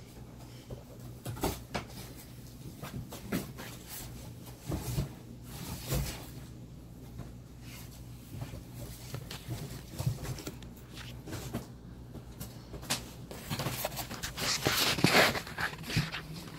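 A puppy pushing, biting and tearing at a cardboard box: scattered knocks and scrapes of cardboard, then a louder burst of ripping and crumpling cardboard near the end.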